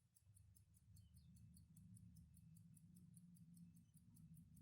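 IWC pocket watch movement ticking faintly, a rapid, even run of about five ticks a second over a low room hum.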